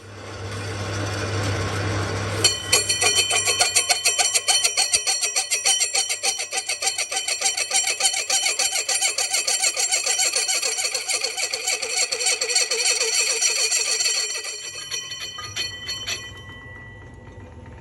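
Metal ringing like a bell under rapid, repeated strikes, about three a second, over a low machine hum. The strikes start suddenly a couple of seconds in and die away near the end, leaving the hum.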